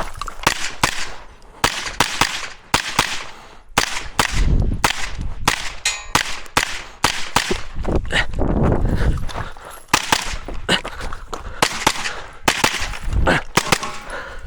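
Pistol-caliber carbine, a Sig Sauer MPX, fired as a run of single shots in quick strings with short gaps between them, about two dozen shots in all.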